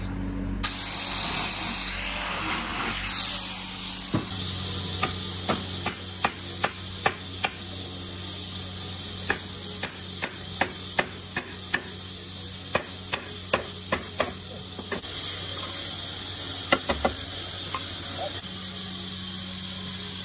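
Hammer knocking the joints of a wooden table frame together: a long run of sharp wooden knocks at about two a second, then a pause and a few more knocks near the end, over a steady workshop hiss.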